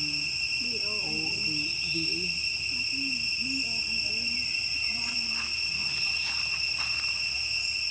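A steady, high-pitched insect drone of crickets or cicadas that runs on without a break. Fainter short, wavering low calls sound under it, and there are a few brief sharper sounds in the second half.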